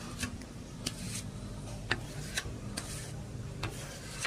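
About seven sharp, irregular clicks or taps over a faint steady low hum.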